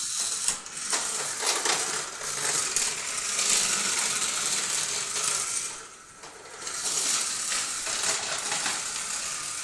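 Small radio-controlled toy car running along a segmented plastic track, its motor and wheels making a continuous rattling clatter with scattered clicks. It drops away briefly about six seconds in, then starts again.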